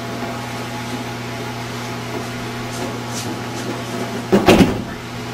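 A person being thrown lands on a padded mat in a breakfall, making a quick cluster of thuds about four and a half seconds in, over a steady low hum.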